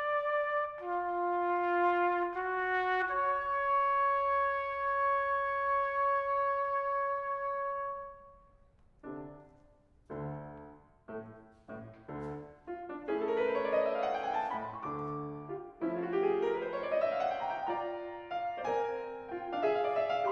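Trumpet and grand piano playing classical music. The trumpet holds a few notes, ending on one long sustained note. The piano then plays alone, first short separated chords and then rising runs, and the trumpet comes back in near the end.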